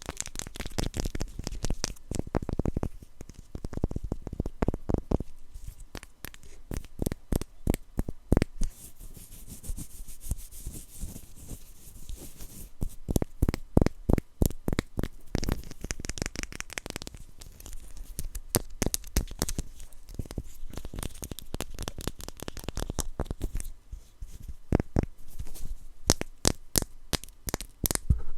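Close-up handling of blind-box packaging: tearing and crinkling of paper and plastic, broken up by many quick, irregular taps and clicks.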